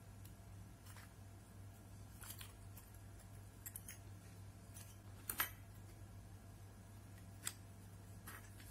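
Scattered small clicks and taps of plastic and metal parts being handled, as an LED bulb's plastic housing and aluminium E27 screw base are worked apart, the sharpest click about five and a half seconds in. A faint steady hum runs underneath.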